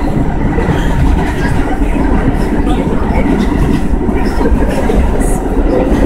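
New York City subway train running at speed, heard from inside the car: a loud, steady rumble of wheels on the rails.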